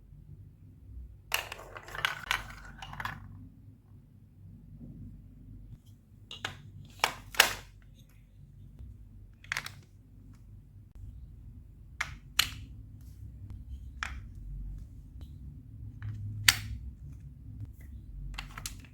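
Hard plastic clicks and clacks of Lego Duplo bricks being handled and snapped together. A short burst of clattering about a second in is followed by single sharp clicks every second or few.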